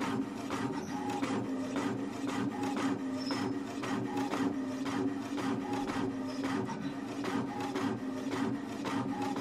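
Home inkjet printer printing a colouring page: a steady motor hum with a rapid, regular run of short strokes as the print head shuttles across and the paper feeds out.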